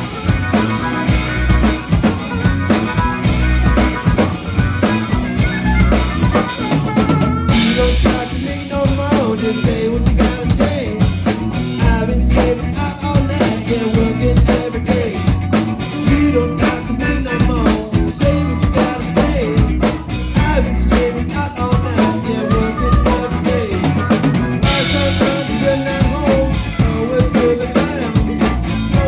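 A band playing a song: a drum kit with bass drum and snare keeps a steady beat under bass and other pitched instruments, with cymbal crashes about eight seconds in and again near the end.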